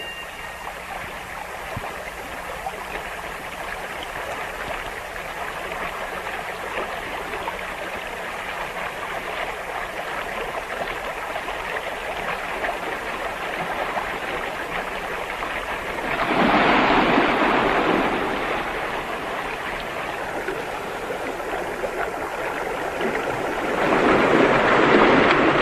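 Rushing white water of a mountain torrent, a steady noise that swells louder twice: once about two-thirds of the way through and again near the end.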